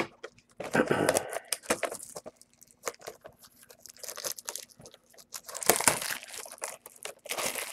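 Plastic wrapping on a box of trading cards crinkling and tearing in several bursts as it is opened, with small clicks and knocks of the box being handled.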